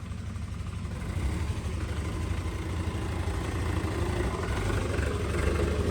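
New Holland tractor's diesel engine running steadily, getting gradually louder.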